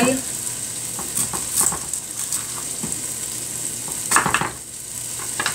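Chicken pieces sizzling steadily in a pot, with small knife clicks on a wooden cutting board as an onion is trimmed, and one louder knock about four seconds in.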